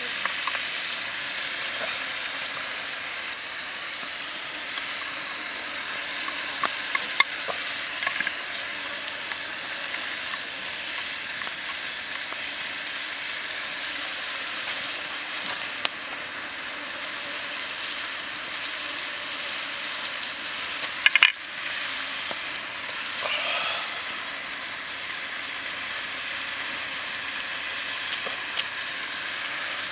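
Squid pieces and chopped vegetables frying in oil in a metal pan, sizzling steadily. Scattered small pops and clicks, and a brief louder burst about two-thirds of the way through.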